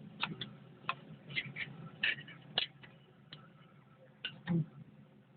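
Steel parts of an excavator travel motor clinking and tapping against each other as they are handled during disassembly: about a dozen irregular sharp metallic clicks, with one duller knock about four and a half seconds in.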